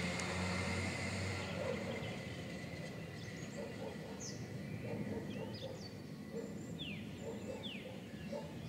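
Outdoor birdsong: short high chirps and a few quick falling whistles, clearest in the second half. From about four seconds in, a run of short low notes repeats under them.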